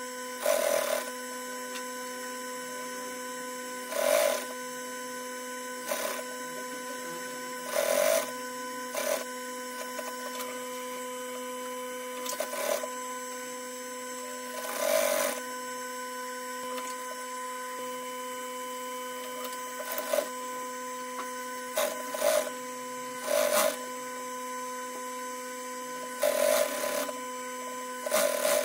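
Industrial sewing machine stitching in about a dozen short runs, each under a second, as the treadle is pressed in stops and starts, over a steady hum.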